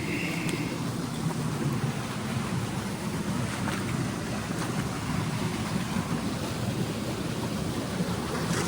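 Steady rushing of water from a waterfall or cascading stream, an even noise that does not change.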